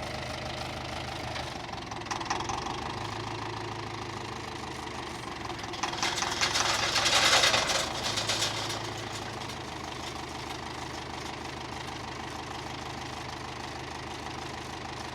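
A farm tractor's engine idling steadily. About six seconds in, a louder rushing noise swells over it and fades again by around eight and a half seconds.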